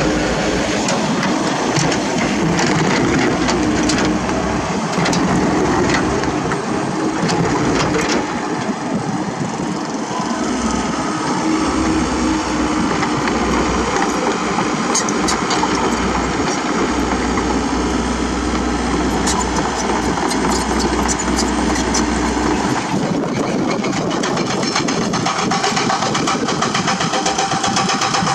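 Komatsu PC78US mini excavator's diesel engine running steadily under load while it digs, with scattered sharp knocks and clatter from the bucket working broken rock. The engine note changes abruptly about three quarters of the way through.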